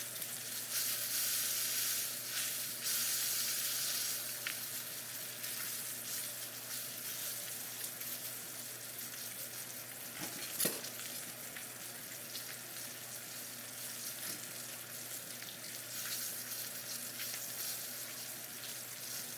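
Steak searing in butter in a hot pan: a steady sizzle with fine crackling spatters, and one sharp click about halfway through.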